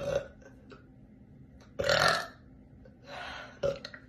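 A woman belching: a loud burp lasting about half a second, about two seconds in, then another just after three seconds with a short one straight after it.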